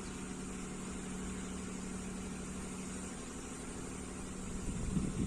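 An engine running steadily with a low, even hum. A rougher, louder rumble comes in near the end.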